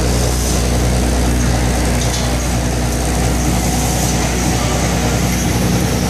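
High-speed connector pin stitcher machine and its parts-feeder bowl running: a steady, loud mechanical hum and buzz that holds even throughout.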